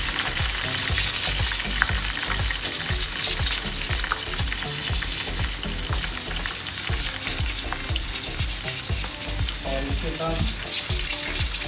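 Spices sizzling in hot oil in a cooking pot while being stirred: a steady frying hiss with many small irregular crackles.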